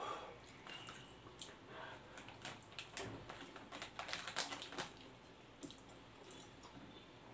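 Close-up eating sounds: noodles being slurped and chewed, with many small wet clicks and ticks from the mouth and chopsticks on a glass plate. Around four seconds in, a brief burst of sharper crinkling as the plastic noodle packet is handled.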